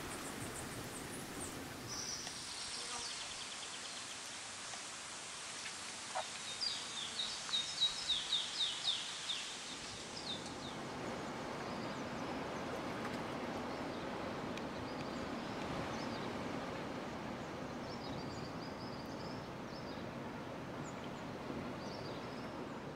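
Outdoor nature ambience: a steady background hiss with birds calling, including a quick run of about eight loud, falling chirps near the middle.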